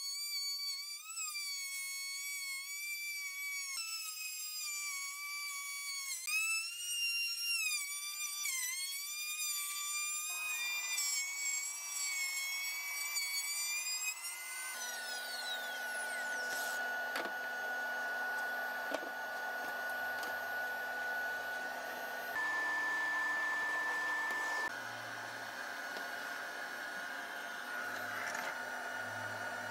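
Compact trim router cutting a circular groove through a wooden panel: a high whine whose pitch dips and wavers as the bit bites into the wood. About halfway through it gives way to a vacuum cleaner running with a steady hiss and a high tone as the sawdust is sucked up.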